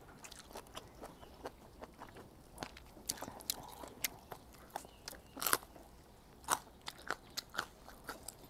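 Close-miked chewing of food, with scattered small crunches and wet mouth clicks.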